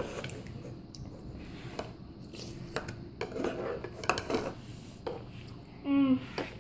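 Metal spoons clinking and scraping in bowls of pomegranate seeds and honey: a scatter of light, irregular clicks as the seeds are stirred and scooped. About six seconds in, a child makes a short voiced sound.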